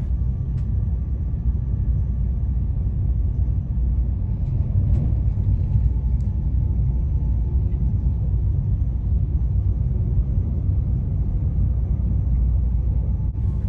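Passenger train running at speed, heard from inside the coach as a steady low rumble with a few faint ticks.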